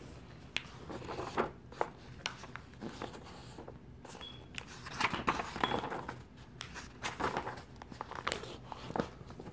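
Sketchbook paper and phone handling: a string of short rustles, crinkles and taps as the pages and phone are moved, busiest around five to six seconds in.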